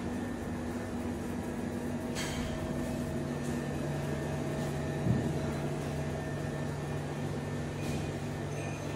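Steady machine hum made of several low and mid tones held without change, with a single soft knock about five seconds in.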